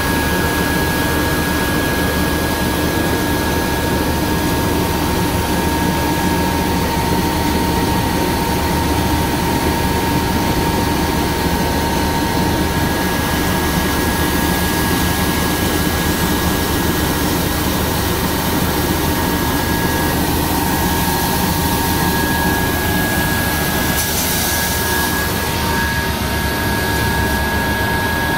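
Jonsen SGP1000 deburring and edge-rounding sander running steadily: a loud, even machine hum with two steady whining tones over it.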